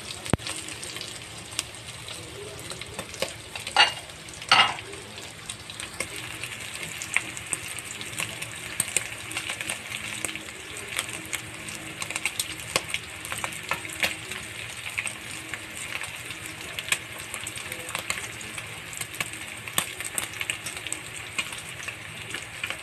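Minced longganisa sausage with garlic and onion sizzling and crackling in hot oil in a metal wok, with two sharp knocks of the spatula against the wok about four seconds in.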